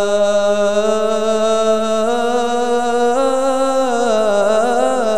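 A single singer holds a long sung vowel of an Arabic patriotic song about Palestine. About three seconds in, the note steps up and breaks into wavering melismatic turns.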